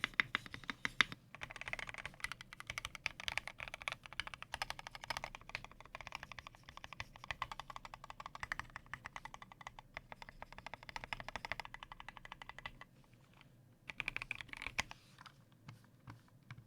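Typing on a custom mechanical keyboard in an aluminium-free Tofu60 case with a polycarbonate plate, lubed and filmed Durock L4 linear switches and OEM-profile keycaps: a rapid stream of keystrokes. It pauses about thirteen seconds in, returns as a short burst a second later, then thins to a few single presses.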